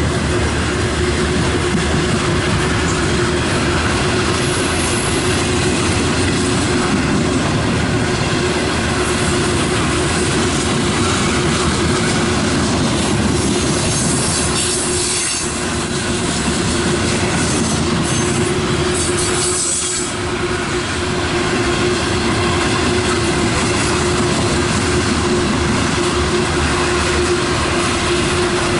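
Cars of a loaded freight coal train rolling past close by: a steady rumble and rattle of wheels on rail, with a steady whine running underneath. Brief high hissing squeals come about halfway through.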